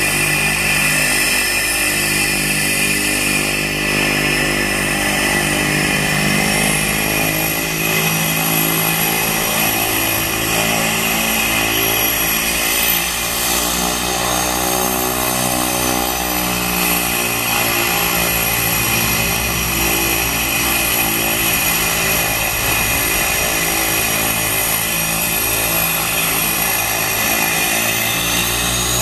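Cessna Caravan's PT6A turboprop engine running at ground idle, its propeller turning: a steady drone under a high turbine whine. Near the end the whine rises in pitch as the aircraft begins to turn and roll.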